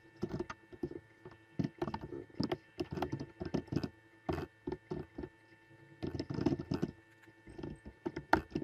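Typing on a computer keyboard: irregular runs of key clicks with short pauses, over a steady electrical hum.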